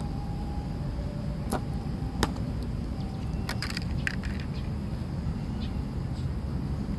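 Steady low outdoor rumble with a few short, sharp clicks: one about one and a half seconds in, a louder one just after two seconds, and a cluster between three and a half and four seconds.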